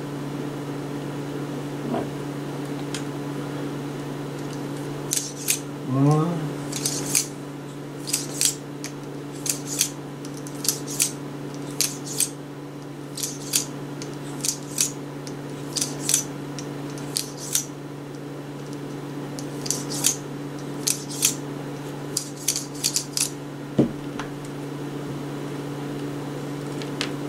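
Cleaning rod pushing a dry cloth patch through the chambers of a revolver cylinder: a run of short, sharp scrapes, irregular and sometimes several a second, over a steady low hum.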